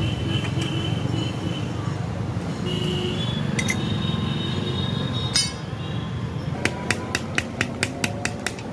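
Hand hammer striking a curved steel blade on a small anvil: one sharp blow about five seconds in, then a rapid run of light, ringing taps, about five a second, through the last two seconds. A steady low rumble runs underneath.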